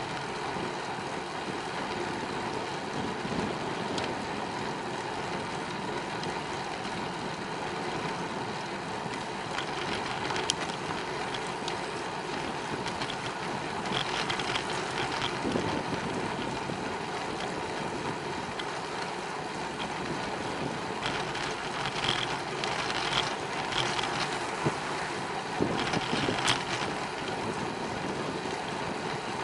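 Steady rush of wind on the microphone and tyre noise from a bicycle being ridden, with scattered short clicks about ten seconds in and a cluster of them near the end.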